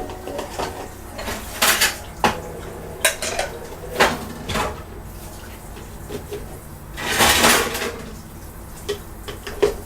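Dishes and cutlery clattering as they are handled: a series of separate clinks and knocks, with a longer rattle about seven seconds in.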